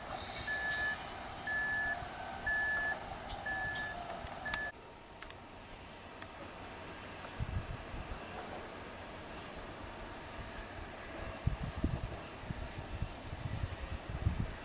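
Construction-site ambience: a short electronic beep repeating about once a second for the first few seconds, then, after an abrupt cut, a steady high-pitched hiss with wind buffeting the microphone in gusts.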